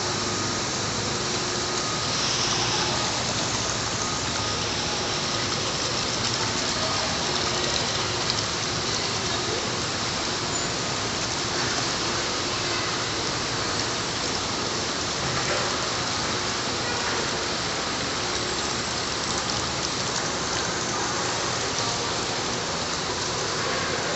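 Water rushing and splashing steadily along a shallow water-play trough.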